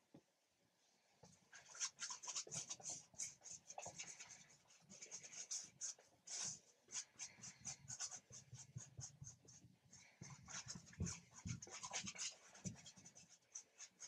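A stiff paintbrush scrubbing acrylic paint onto a stretched canvas: a faint run of short, scratchy strokes, several a second, starting about a second and a half in.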